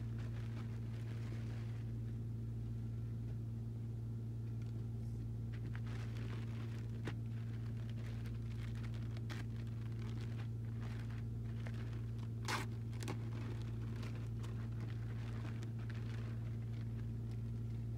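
Faint rustling and crinkling of a T-shirt's packaging being handled during unboxing, with a few sharper crackles, the loudest about twelve and a half seconds in, over a steady low electrical hum.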